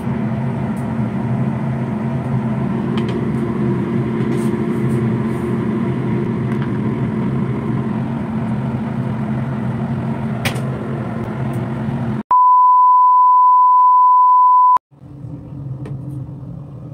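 Steady machine hum made of several low steady tones. About twelve seconds in it cuts off abruptly to a single loud, steady high beep lasting about two and a half seconds, then a quieter hum returns.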